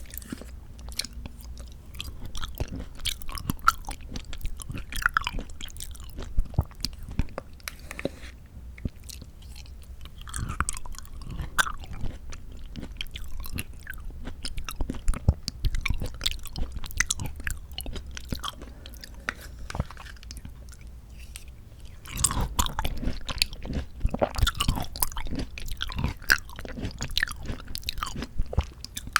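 Close-miked chewing and biting of canned mandarin orange segments from a fruit cup: a steady run of small mouth clicks and chewing noises, growing busier about two-thirds of the way through.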